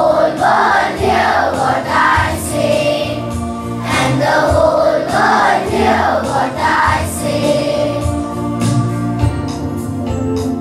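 Children's choir singing a prayer song over instrumental accompaniment, in two sung phrases with the accompaniment carrying on alone near the end.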